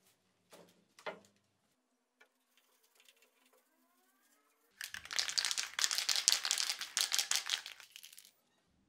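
A cloth rubbed briskly over a cut PVC pipe shade, wiping it down before spray painting: a dry rustling rub that starts about five seconds in and lasts about three seconds. Two light knocks near the start as the pipe pieces are set down on the paper-covered table.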